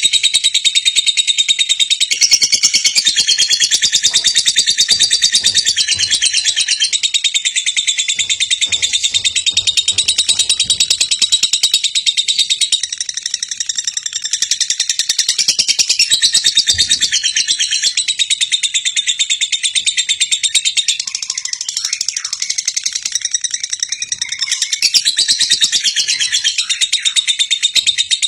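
Lovebird chattering in a long, fast, unbroken run of high chirps, a lure song played to get other lovebirds singing.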